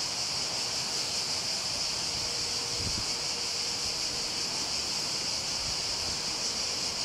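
Cicadas singing in a steady, high-pitched chorus from the trees beside the line.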